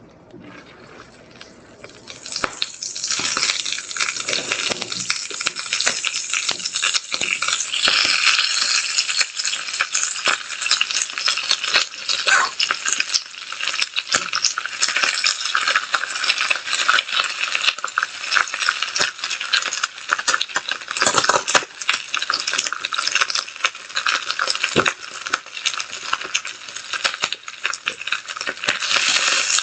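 Fresh spinach sizzling and crackling in hot olive oil in a frying pan, starting about two seconds in as the leaves go into the pan.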